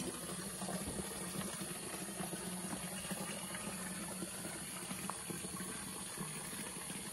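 Steady flow of running water, an even continuous rush with no breaks.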